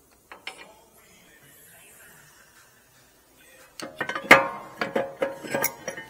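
Front brake rotor of a BMW 5 Series F10 clanking against the wheel hub and caliper carrier as it is worked loose and pulled off: a quick run of metallic knocks that ring, starting about four seconds in, after a small click near the start.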